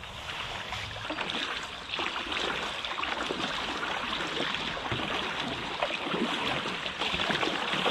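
River water rippling and splashing along a moving inflatable stand-up paddle board, with paddle strokes dipping into the water. It is a steady, even wash with small splashes through it.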